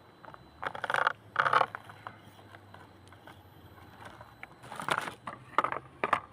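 Redcat Ascent18 micro RC crawler driving over rough ground: four or five short bursts of scraping and crunching, with scattered clicks between them.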